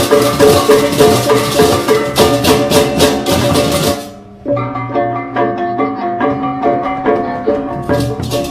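Music of tuned percussion with drums and a steady beat; it dips briefly a little after four seconds in, then carries on with less high shimmer.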